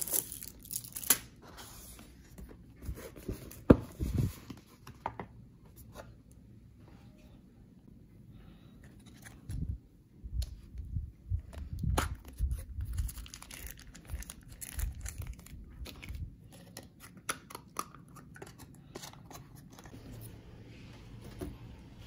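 Handling noise from a cardboard takeaway box being opened, with paper and cardboard rustling and tearing and scattered knocks. Later, plastic crinkles and clicks come as the lid of a small plastic soy-sauce cup is pried off.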